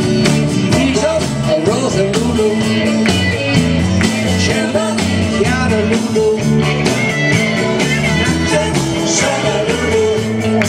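Live rock band playing loud and steady, with a bass guitar, a drum kit keeping a regular beat, and a singer.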